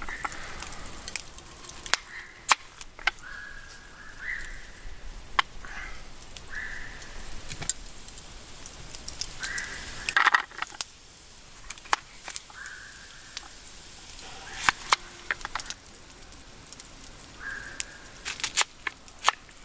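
Kitchen knife peeling a potato and then cutting an onion on a wooden cutting board, giving scattered sharp clicks and taps, with crackling from a wood campfire. A few short, high squeaky sounds come every few seconds.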